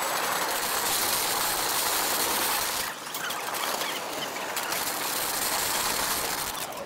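Airport luggage trolleys loaded with bags rattling as they are pushed over paving and asphalt; the rattle drops and changes about three seconds in.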